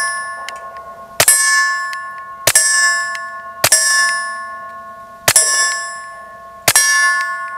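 Taurus TX22 .22 LR pistol firing subsonic rounds, five deliberate shots about a second and a half apart. Each shot is followed at once by the ringing ping of a hit steel plate target, which fades away before the next shot.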